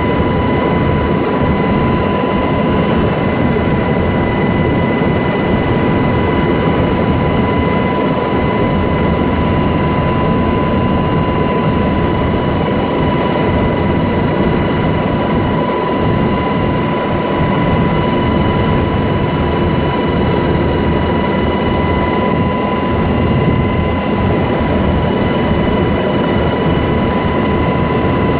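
Helicopter in flight, heard from inside the cabin: steady engine and rotor noise with a steady high whine over it.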